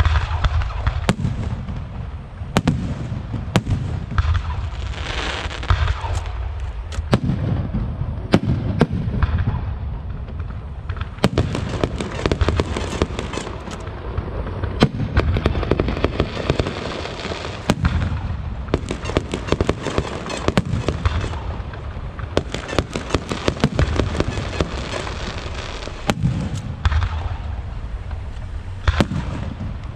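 Fireworks and firecrackers going off without a break: dense, overlapping bangs and sharp cracks over a steady low rumble.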